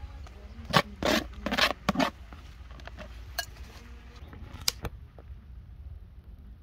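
Metal spoon scraping and clinking against a ceramic bowl as shredded green mango is scooped in. There are several short scrapes close together in the first two seconds, then a few lighter clicks.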